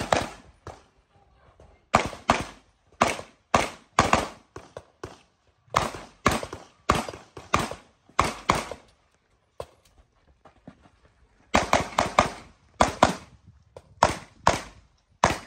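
Pistol shots fired in quick pairs (double-taps) as a shooter works through an IPSC course of fire, with a pause of about two seconds near the middle before a fast string of shots.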